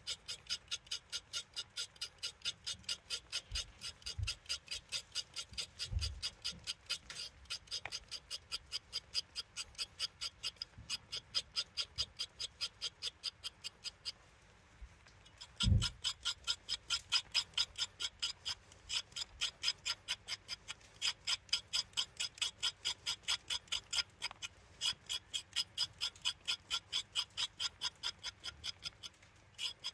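Quick, even scraping strokes of a small blade peeling a raw carrot and then a parsnip, about three strokes a second. The strokes stop briefly a little before halfway, a single low thump follows, and then the scraping resumes.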